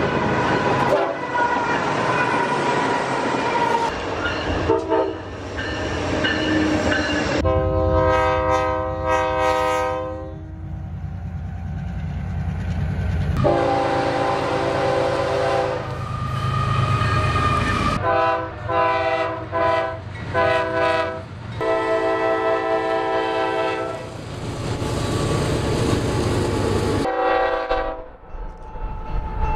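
A string of short clips of diesel locomotive air horns, several different horns each sounding blasts of steady tones, joined by abrupt cuts. Under them runs the noise of moving trains on the rails.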